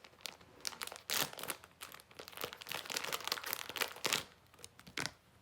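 Plastic packaging crinkling and crackling in irregular bursts as it is handled and opened, for about four seconds, then a couple of single crackles near the end.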